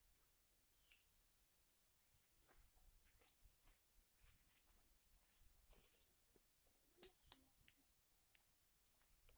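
Small songbird chirping faintly, a short upward-sliding note repeated about once a second, with sharp high ticks between the chirps.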